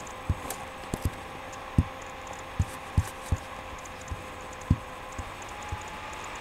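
About a dozen short, dull, low thumps at irregular spacing, over a steady background hum.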